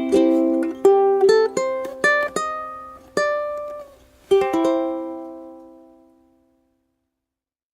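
Closing bars of a song on a plucked string instrument: a few strummed chords and single plucked notes, then a last chord about four and a half seconds in that rings out and dies away.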